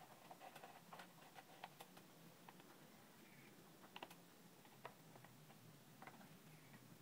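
Faint, scattered light clicks and rubbing of a plastic stand-fan motor cover being slid off the motor and handled, closest together in the first second or so and sparser after.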